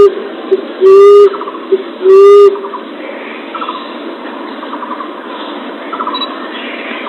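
Common emerald dove (punai tanah) cooing: three low, hooting coos about a second apart, stopping after about two and a half seconds. Faint rattling trills continue in the background.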